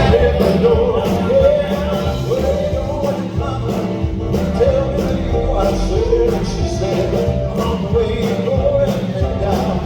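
Live southern gospel quartet music: male voices singing an upbeat song over a full band with a steady drum beat.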